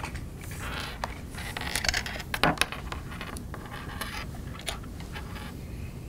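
Handling sounds: a thin cable rubbing and rustling as a rubber grommet is slid back along it, with scattered small clicks of metal DB9 connector parts, the sharpest around the middle.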